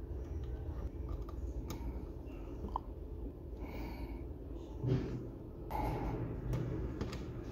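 Small handling sounds of wiring: a few light clicks and rustles as wires are pushed into plastic screw terminal blocks and worked with a small screwdriver, over a low steady hum.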